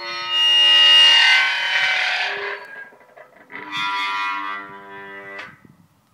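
Two long squeaks: a loud, drawn-out one, then a second starting about halfway through that stops suddenly with a click.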